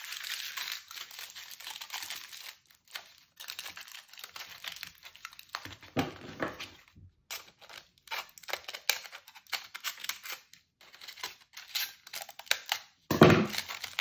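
Aluminium foil crinkling and crackling in irregular bursts as it is squeezed and wrapped around a small foil figure. A louder knock comes near the end.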